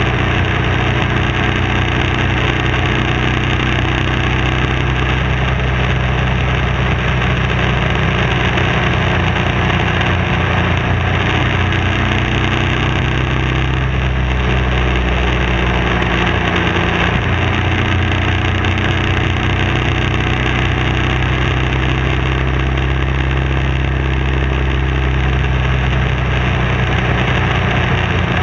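BMW F650 motorcycle engine running at a steady cruising pace, with heavy wind and road noise over it. The engine note shifts for a few seconds around the middle, then settles again.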